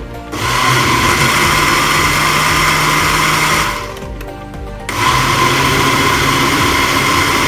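Electric blender motor running while blending cream, condensed milk and mango: it runs for about three seconds, stops for about a second, then starts again.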